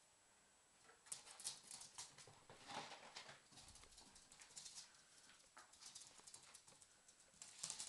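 Shiba Inu puppy's claws clicking and scrabbling on a laminate floor as it runs about. The quick clicks come in faint, irregular flurries starting about a second in.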